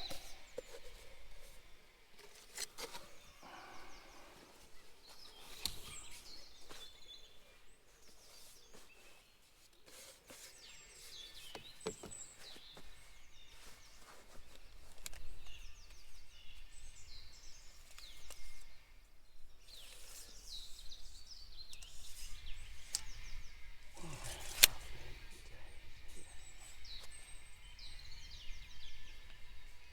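Small birds chirping again and again in the background, with occasional knocks and scrapes of hand work in sand. A single sharp knock about 25 seconds in is the loudest sound.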